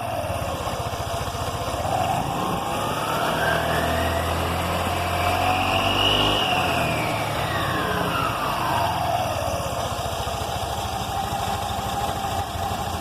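Italika scooter engine running with its transmission cover off: it idles, revs up smoothly for several seconds and settles back to idle. It runs normally, with no rattle or vibration noise.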